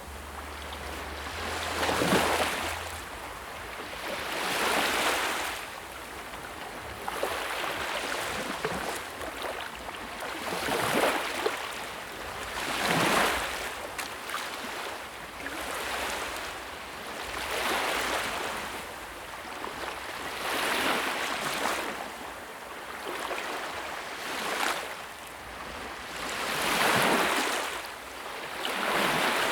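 Sea waves surging and washing in, one swell of surf every two to three seconds.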